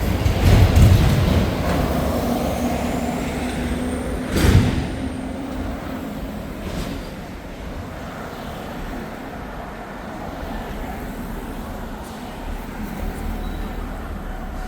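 City street traffic with a heavy vehicle rumbling past close by, loudest in the first two seconds, and a short sharp noise about four and a half seconds in; then steadier, quieter traffic.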